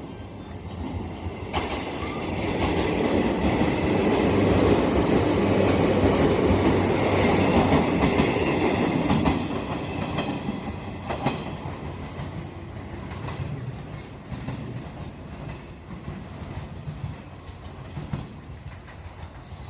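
JR Shikoku 113 series electric train passing, its wheels clacking over the rail joints. The sound builds to its loudest a few seconds in and then fades away.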